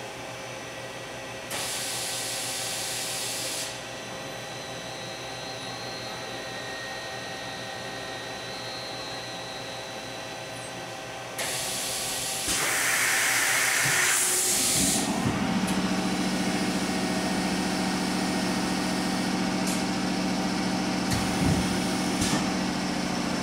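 Pallet pool of a KIWA KNH-426X six-pallet horizontal machining center being rotated: two hisses of air, the first about two seconds long, the second about three seconds long, then, about two-thirds of the way in, a drive starts running with a steady low hum.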